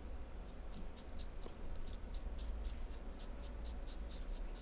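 Faint, even ticking, about four or five light ticks a second.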